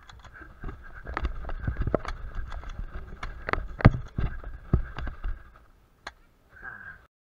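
Running footsteps on dry ground with the worn camera jostling, an irregular run of thuds and knocks, then a single sharp crack of an airsoft pistol firing about six seconds in.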